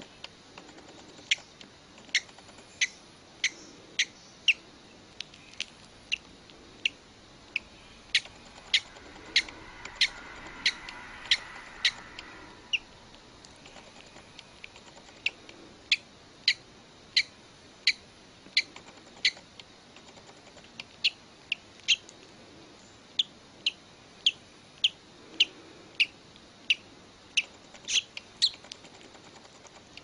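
A chick pecking at the inside of its small eggshell while hatching: sharp little taps about every half second, breaking off for about two seconds a little before the middle and then going on.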